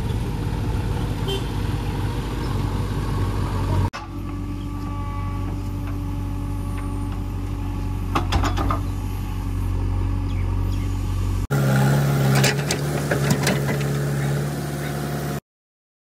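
Diesel engine of a JCB 3DX backhoe loader running while its backhoe bucket digs into a heap of cow dung, with clanks around the middle and again after about twelve seconds. The engine note changes abruptly about four and eleven seconds in, and the sound cuts out completely about half a second before the end.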